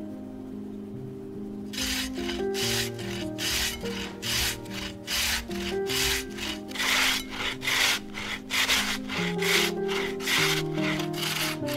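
A raw potato scraped up and down a flat stainless-steel hand grater in quick strokes, about two to three a second, starting about two seconds in.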